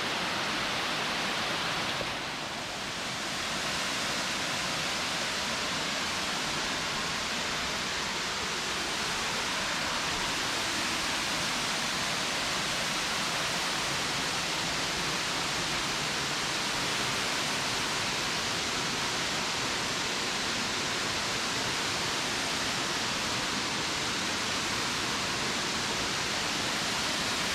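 Spring water gushing out of gaps in the rocks and cascading in a broad, low waterfall: a steady rushing. It dips briefly about two seconds in.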